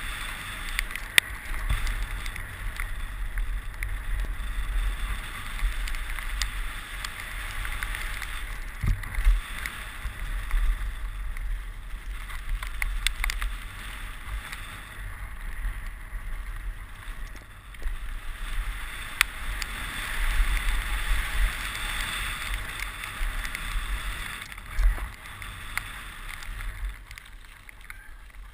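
Mountain bike ridden fast down a dirt track, heard from a helmet camera: a steady rush of wind and tyres rolling over dirt and gravel, with scattered sharp knocks and rattles from bumps.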